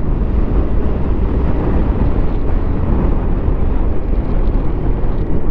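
Steady rush of wind noise and motorcycle engine from a moving motorcycle, loud and unbroken.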